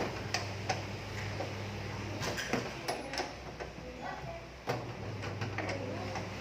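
Irregular clicks, knocks and scrapes of a special wrench working the transit bolts out of the back of a front-loading washing machine, over a steady low hum.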